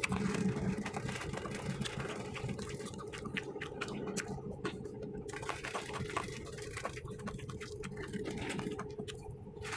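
Shallow sea waves washing and splashing around a steel barge hull on the beach, an irregular hiss with small splashes, over a steady low hum.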